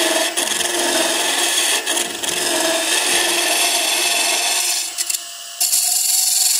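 Hunter Viceroy cupped carbide tool cutting into the end grain of spinning wood on a lathe while hollowing a box: a steady, loud scraping hiss of the cut. Near the end the cut breaks off for about half a second, then starts again.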